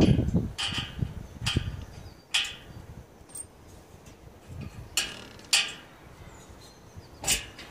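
A low rumble fades out in the first half second. After it come scattered sharp metallic clinks and scrapes, about six in all at irregular intervals, from hand work on the mounting of an electric motor in a welded steel frame.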